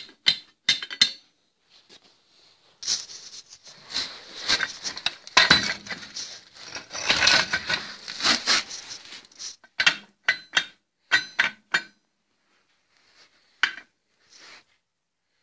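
Steel channel pieces clinking and scraping against each other as they are handled: a few sharp clinks, then several seconds of rattling and scraping, then a run of separate clinks.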